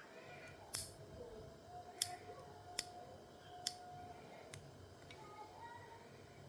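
Nail clippers snipping through nails: five sharp, separate clicks about a second apart.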